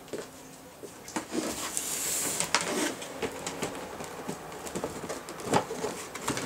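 A cardboard box being set down and its flaps opened and handled by hand: scattered taps, knocks and scuffs on the cardboard, with a longer rubbing rustle about two seconds in.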